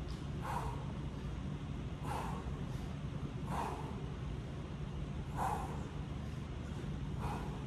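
A person breathing hard from exertion, with sharp, forceful exhales about every one and a half to two seconds, over a steady low hum.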